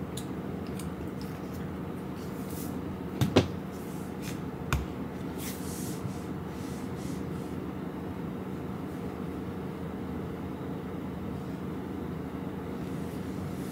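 A steady low hum of room noise, broken by two sharp knocks close together about three seconds in and a lighter knock about a second and a half later, with faint scattered ticks.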